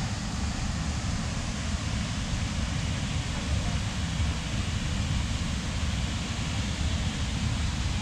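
Steady rushing of a waterfall, a single stream falling about 20 metres from a cliff into a pool, with a low rumble underneath.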